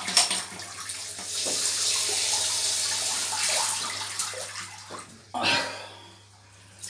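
Cold water running from a bathroom tap over a shaving brush into the sink. The hiss swells about a second in and dies away around five seconds, and a brief sharp splash of noise follows soon after.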